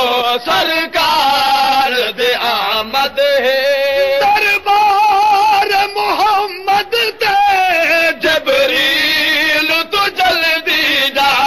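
A man chanting a devotional nazm in a melodic voice, the pitch wavering on long held notes, with short breaks between phrases.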